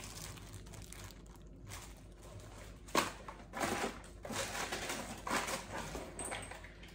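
Plastic packaging crinkling and rustling as parts are handled in a plastic storage tub, in several short stretches, with one sharp knock about three seconds in.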